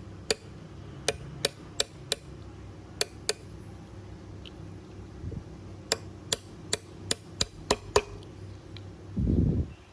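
Light, sharp hammer taps in quick runs, about three a second, the last run of seven ending about eight seconds in, followed by a brief low thump near the end.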